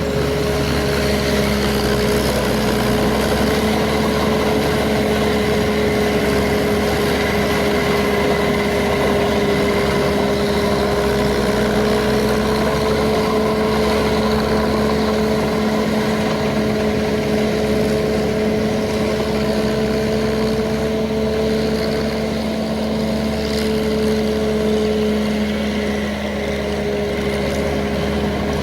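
Paddy-field tractor engine running at a steady speed, a constant pitched drone with a slight dip in level about two-thirds of the way in.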